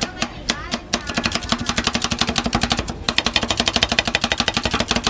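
Two metal spatulas chopping ice cream base and mix-ins on the steel cold plate of a rolled ice cream pan, making a fast run of metallic taps that quickens to about ten a second about a second in. A steady low hum sits underneath.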